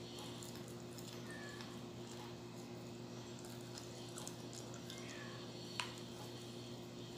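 Faint chewing and mouth sounds of eating banana cue, soft sticky fried caramelized banana, with small clicks and one sharper click about six seconds in, over a steady low hum.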